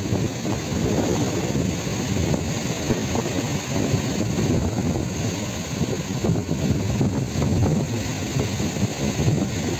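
Strong wind buffeting the microphone in a steady, rumbling roar, over the wash of rough sea waves breaking on the beach.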